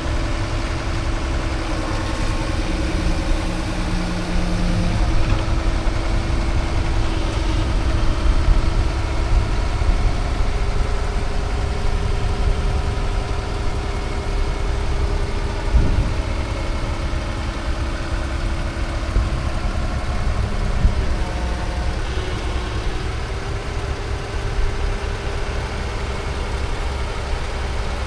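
A motor running steadily: a low rumble with a steady hum, and a single knock about halfway through.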